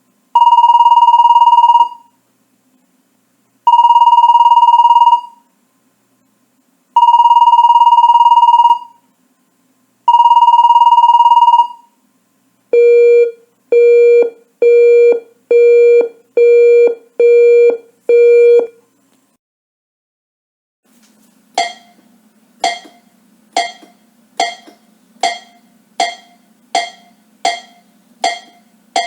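Electronic beep tones: four long loud steady beeps at one pitch, a couple of seconds apart, then seven shorter, lower beeps in quick succession. After a short pause, a regular sharp clicking starts, about one click every 0.8 s, over a faint low hum.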